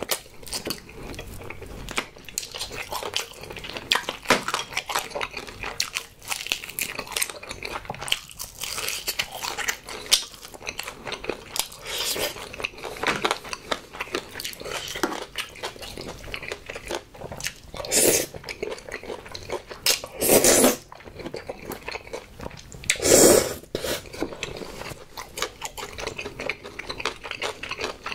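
Close-miked crunching and chewing of a fried honey chicken drumstick: many small crunches with wet chewing between them. Three louder, half-second bursts come about two-thirds of the way through.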